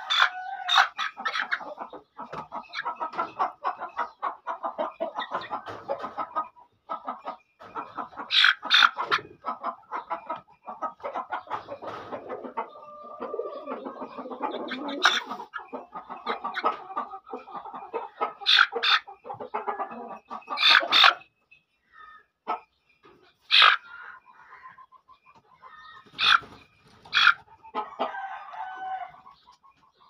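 Young Aseel chicken clucking steadily, with several short, louder sharp calls.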